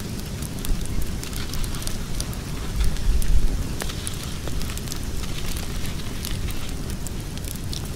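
Wood fire crackling, with scattered sharp pops over a steady low rumble that swells briefly about three seconds in.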